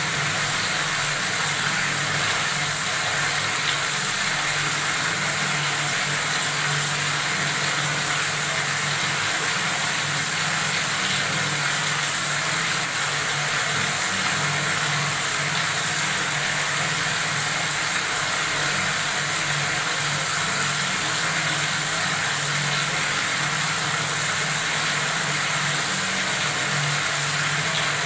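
Water running steadily from a faucet: an even, continuous splashing hiss that does not change.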